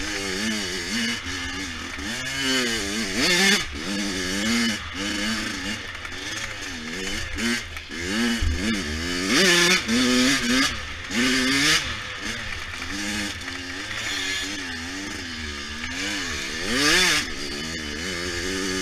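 A 100cc dirt bike engine being ridden hard, its pitch rising and falling over and over as the throttle is worked and gears are changed, with a few short rushes of noise in between.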